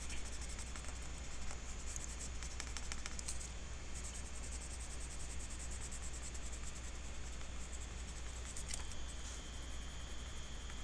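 Colored pencil scratching back and forth on sketchbook paper as an area is shaded in with colour, over a steady low hum.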